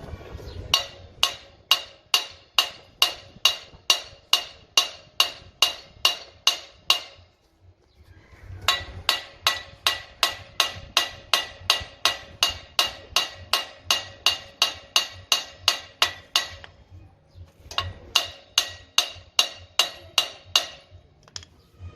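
A hammer beating on a steel scooter frame at a steady pace of about three ringing blows a second. The blows come in three runs with short pauses between them, as when metal is being straightened.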